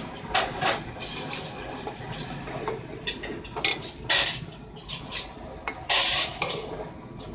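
A ladle stirring and scraping around an aluminium pot of boiling rice, in irregular strokes, the loudest about four and six seconds in.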